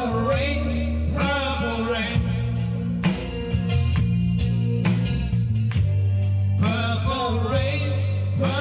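Live band playing: a woman sings over guitar and a steady bass line, with light percussion ticking along.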